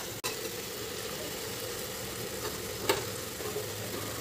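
Khutora (amaranth) greens sizzling in hot oil and spice paste in a pan as they are stirred. A metal spoon clicks against the pan just after the start and knocks on it about three seconds in.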